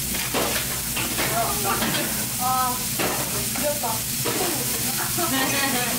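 Thinly sliced beef brisket rolls and bean sprouts sizzling on a hot griddle plate over a gas burner, a steady frying hiss.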